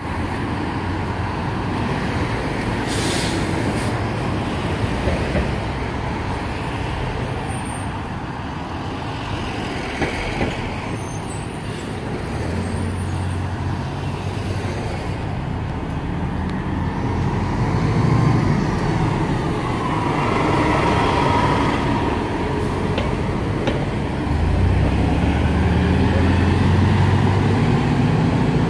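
Nova Bus RTS transit bus: a short burst of air hiss from its air system, then its diesel engine pulling away and driving past, with the engine note rising and a whine as it goes by, over street traffic.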